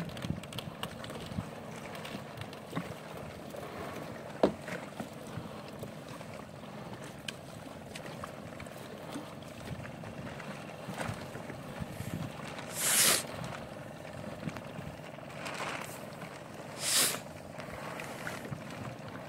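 Fishing net being hauled by hand over a boat's side: scattered small knocks and rustles of net and floats against the gunwale over a faint steady hum, with two short rushes of noise, like splashes, about two-thirds of the way through and again near the end.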